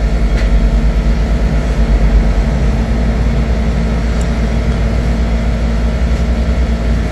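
A steady, loud whir of an electric blower motor and rushing air over a low hum, unchanging throughout.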